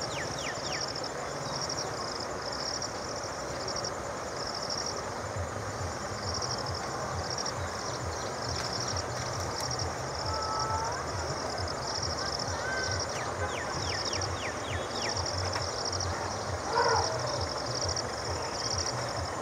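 Rural outdoor ambience: a high insect chirp repeating a little more than once a second over a low pulsing hum. A few quick falling bird chirps come through, with one short louder call near the end.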